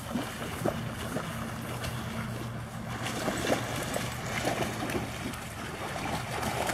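Dogs swimming and splashing through shallow water as they wade out of a pond, with a steady low wind rumble on the microphone.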